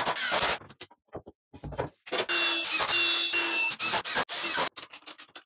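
Cordless drill driving long construction screws into 2x4 framing, running in several stop-start bursts. The longest burst, with a steady motor whine, comes about two seconds in and lasts about two and a half seconds.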